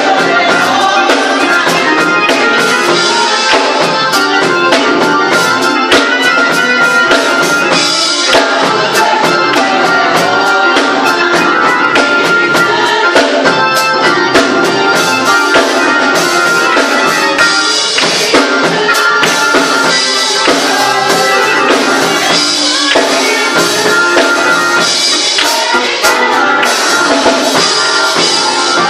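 Church choir singing with drums, and hand claps on the beat.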